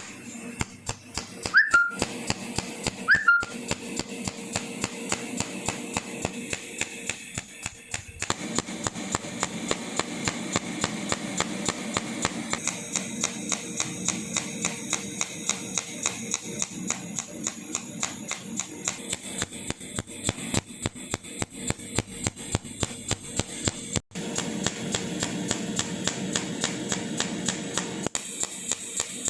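Pulse-arc cold welder (AWE-P1600) welding 0.5 mm stainless steel in continuous mode: a regular snapping tick about three times a second over a steady high whine. Two short falling beeps sound near the start.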